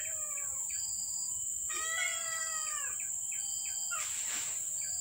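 Cats meowing: a falling meow right at the start and one long meow that rises and falls about two seconds in. Short chirps and a steady high whine run beneath them.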